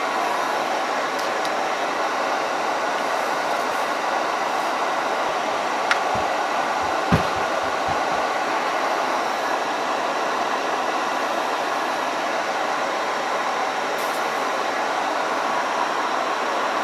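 A steady, even rushing noise, with two soft knocks about six and seven seconds in.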